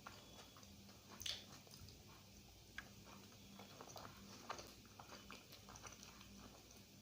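Faint chewing of a mouthful of egg curry and rice: soft, wet mouth clicks and smacks at irregular intervals, a slightly louder one a little over a second in.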